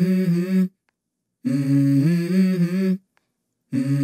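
Background music intro: a hummed melody phrase of a few held, stepping notes, about a second and a half long, repeated after short gaps of silence.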